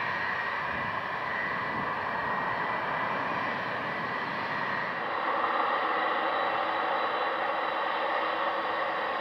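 Jet engine noise from a four-engine jet airliner climbing away at takeoff power, a steady rushing roar. About five seconds in it gives way, at a cut, to a twin-engine jet airliner touching down, whose engines carry a steady whine of several tones over the roar.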